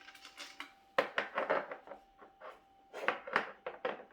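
Rubbing and scraping of a monitor's parts and packaging being handled and moved aside, in quick runs of strokes about a second in and again near the end.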